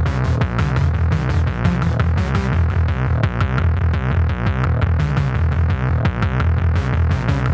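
Electronic groovebox track played live on hardware: a fast drum-machine beat from the Novation Circuit and Akai Rhythm Wolf over a heavy bass line made from the Akai Tom Cat's tom fed through a Moog Freqbox and MF Drive distortion.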